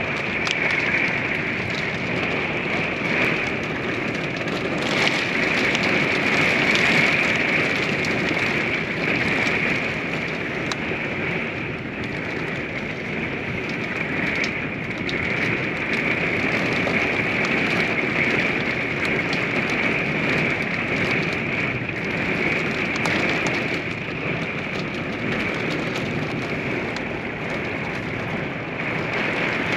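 Steady rain falling during a thunderstorm.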